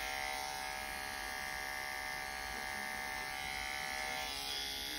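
Corded electric animal clippers buzzing steadily as they shave a patch of fur on a dog's side.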